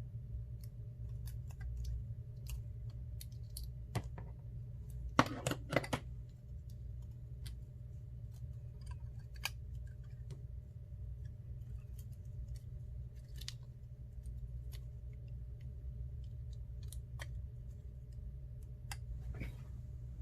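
Scattered small clicks and taps of tools and phone parts being handled during an iPhone 6 Plus screen repair, with a louder cluster of clicks about five seconds in, over a steady low hum.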